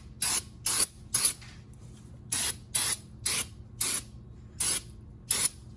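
Aerosol brake cleaner sprayed in about nine short hissing bursts, roughly half a second apart with a brief pause about two seconds in, cleaning the face of a brake rotor.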